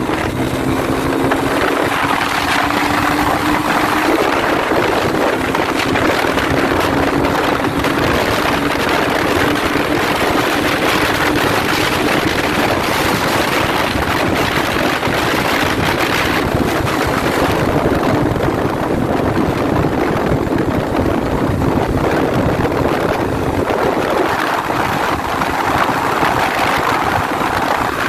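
Yamaha FZ 250 motorcycle with its single-cylinder engine pulling hard at speed on a top-speed run with a passenger, its note rising a little over the first few seconds. Heavy wind rush on the microphone covers most of the engine sound.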